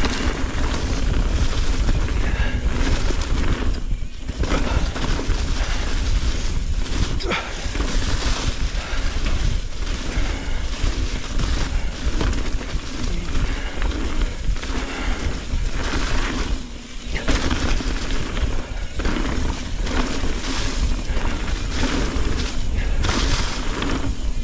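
Mountain bike riding fast down a leaf-covered dirt trail: tyres crunching over dry leaves and the bike rattling over roots and rocks, with heavy wind buffeting on the helmet camera's microphone. It eases briefly about four seconds in and again around seventeen seconds.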